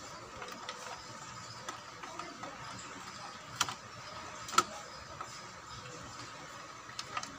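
Hands handling an open amplifier's metal chassis and its parts: faint rustling and handling noise with a few sharp clicks, the loudest about four and a half seconds in and another a second before it.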